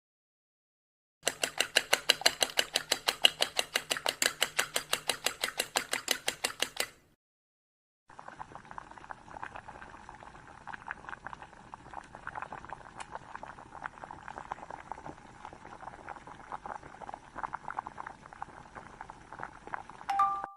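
Kitchen cooking sounds: a rapid, even run of knocks, about five or six a second, for some six seconds, then after a short pause food bubbling and crackling in a pan.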